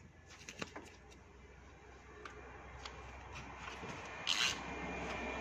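Light scattered clicks and taps from a ratchet and oil filter wrench being worked on the oil filter, with one brief louder rasp about four seconds in.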